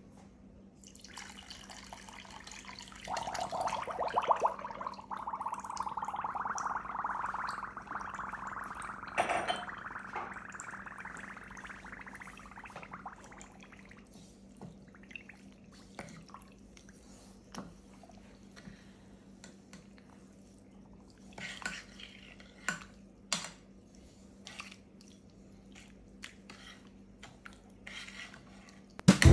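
Liquid pouring into a stainless steel pan for several seconds, followed by a metal slotted spoon clinking and scraping against the pan in scattered knocks while thick orange peel and syrup are stirred.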